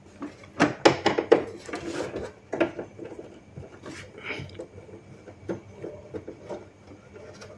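Plastic clicks, knocks and scraping as a screwdriver pries at the rear tray of a Canon G3060 printer's plastic housing. There are several sharp clicks in the first second and a half, then lighter scraping and taps.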